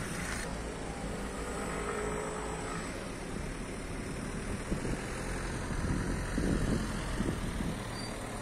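Iveco E-Way battery-electric city bus pulling away and driving off, with a faint motor whine and tyre noise over a steady street-traffic rumble. A car passes close near the end, the loudest moment.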